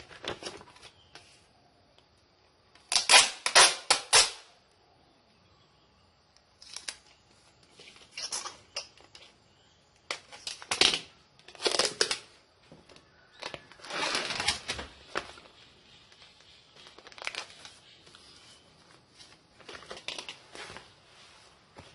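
Packaging crinkling and rustling as it is handled, in irregular bursts with short quiet gaps between them; the loudest run of rustles comes about three seconds in.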